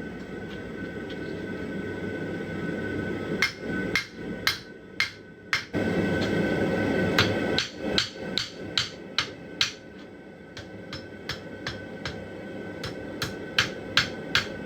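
Hammer striking hot steel on an anvil, blows coming in runs of about two to three a second with a metallic ring, lighter taps near the end, over a steady rushing noise.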